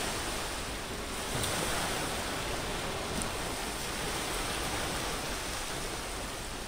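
Steady wash of sea surf breaking on a sandy beach, an even rushing noise with no pauses.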